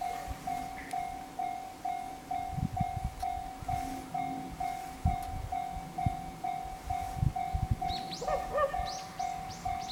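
Japanese level-crossing warning bell ringing steadily, about two strikes a second, with occasional low thuds from the passing E653 series train on the rails.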